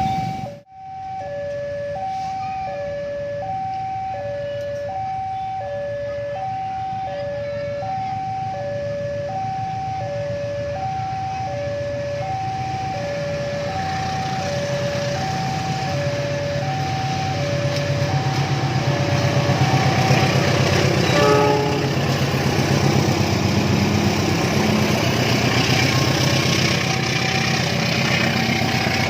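Railway level-crossing alarm sounding two alternating tones, high then low, over and over. From about halfway through, the low rumble and clatter of an approaching diesel train builds under it and grows louder.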